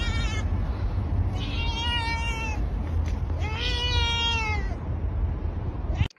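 Cat meowing: the end of one meow, then two long meows, each rising and then falling in pitch, over a steady low rumble.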